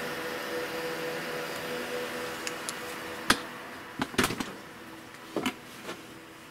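Background music with held tones fading out, with a few sharp clicks and knocks about halfway through.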